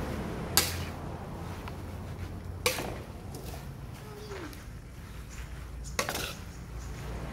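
Metal spatula scraping and clacking against a wok while stir-frying squid and basil leaves, with three sharp clanks a few seconds apart.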